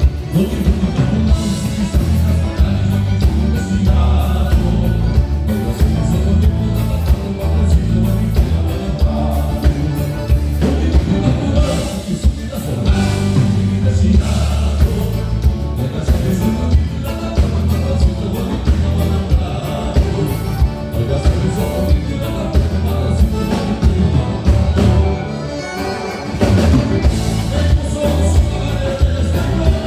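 Live band playing gaúcho music: a steady beat over heavy bass, with singing.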